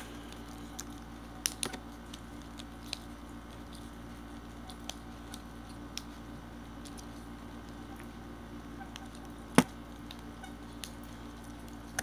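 Scattered light clicks and taps of small objects being handled, with one sharp, loud click about three quarters of the way through, over a steady low hum.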